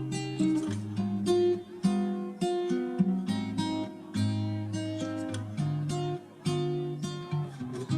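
Background music: an acoustic guitar plucking and strumming notes at an even pace.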